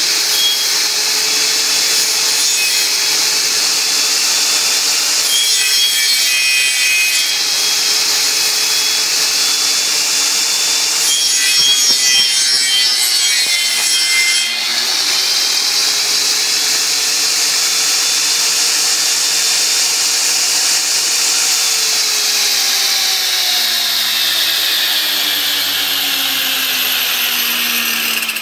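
Homemade copy lathe running, its power cutter shaving a spinning firewood blank into sawdust, with a steady motor whine and heavier cutting noise in two passes. About three-quarters of the way through, the motor's pitch falls steadily as the machine winds down.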